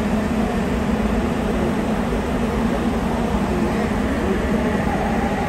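Inside a Sapporo subway Tōhō Line rubber-tyred train running between stations: a steady running rumble with a constant low hum.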